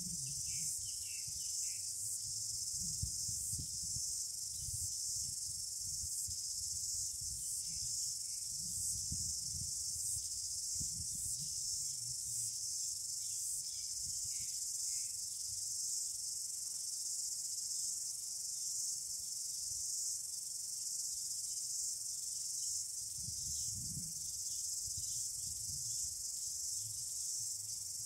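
A steady, high-pitched insect chorus, like crickets chirring, with low rumbles coming and going underneath.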